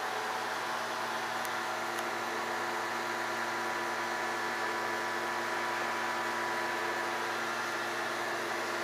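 Steady mechanical hum and hiss with several faint held tones, unchanging throughout.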